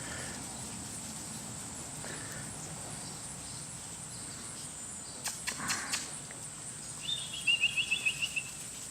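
Outdoor ambience with a steady high-pitched hum and a few sharp clicks midway. About seven seconds in, a bird gives a quick run of about eight chirps.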